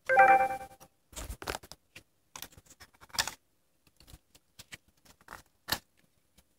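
A brief pitched sound in the first second, then scattered light clicks and knocks of small plastic USB wall chargers being picked up and handled, one sharper click near the end.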